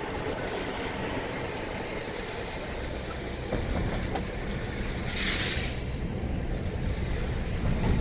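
Steady road and engine rumble of a moving car heard from inside the cabin, with a brief hiss about five seconds in.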